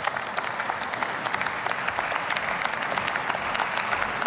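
Members of parliament applauding: many people clapping together in a dense, steady patter.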